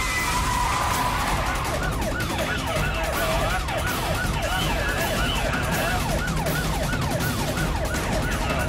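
Siren wailing in a fast, repeated rise and fall, starting about two seconds in, over a steady rushing noise.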